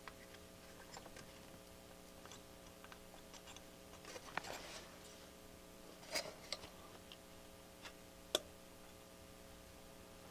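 Scattered small clicks and taps of diodes and hand tools being handled on a workbench while the parts are refitted into a circuit board, over a faint steady electrical hum.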